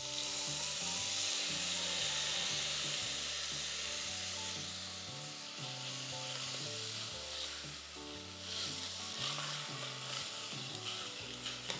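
Soaked sago pearls, with their soaking water, sizzling as they hit hot ghee and roasted vermicelli in a stainless pressure cooker. The sizzle starts suddenly and dies down over the first few seconds, flaring up briefly as a wooden spatula stirs it.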